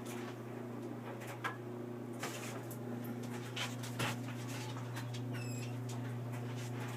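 A dog whimpering over a steady low hum, with scattered soft clicks and rustles.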